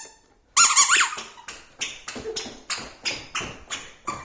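Toddler's squeaky shoes squeaking with each step as the child walks, a sharp squeak about half a second in and then quick, even squeaks about three a second.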